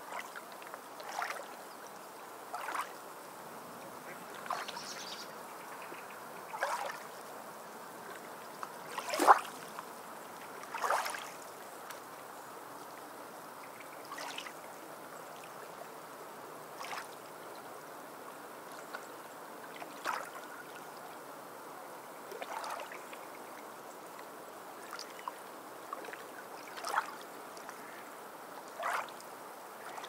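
Small waves lapping and splashing against shoreline rocks: a brief splash every second or two over a steady low wash, the loudest about nine seconds in.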